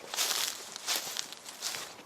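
Footsteps: short noisy scuffs about twice a second.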